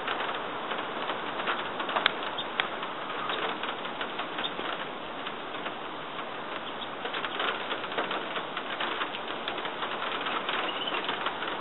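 Steady rain falling through the trees, a continuous patter dotted with many small drip clicks on leaves and branches.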